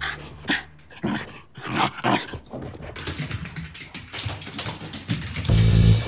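Shiba Inu dog growling in several short bursts. Background music cuts back in loudly near the end.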